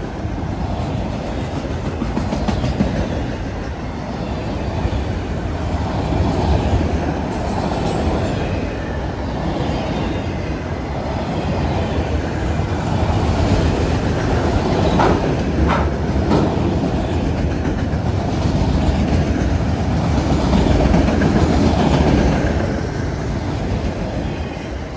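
Freight train cars rolling past, wheels clacking steadily over the rail joints, the sound swelling and easing as the cars go by. There are a couple of brief sharper sounds about two thirds of the way through.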